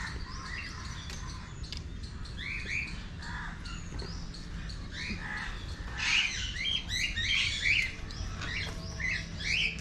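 Caged parrots calling: a busy mix of short chirps and squawks from many birds, heaviest about six to eight seconds in.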